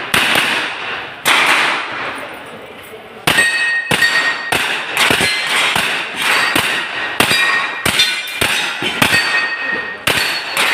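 Carbine fired in a string of about fifteen shots, two spaced shots and then a run at about two a second. Steel plate targets ring after hits from about three seconds in.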